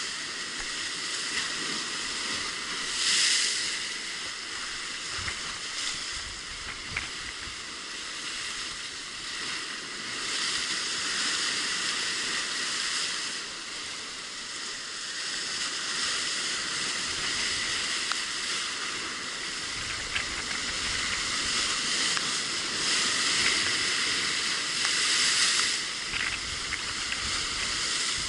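Sea waves breaking against rocks, with a steady hiss of foaming surf that surges louder a few times as bigger waves come in.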